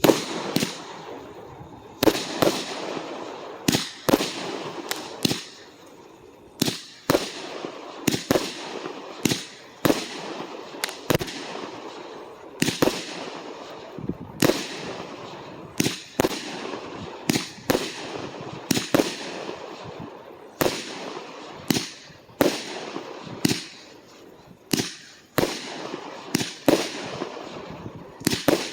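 Fireworks going off in quick succession: sharp bangs about one or two a second, with a crackling hiss between them.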